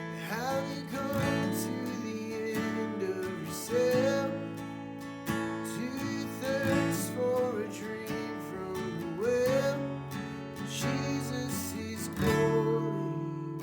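Acoustic guitar strumming slow worship music, with a melody sliding between notes above the chords.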